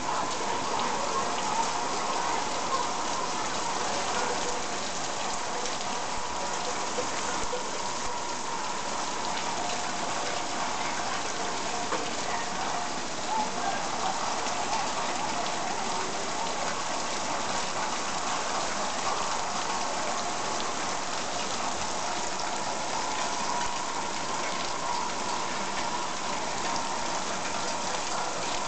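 Steady rain falling, an even hiss of drops that holds without a break.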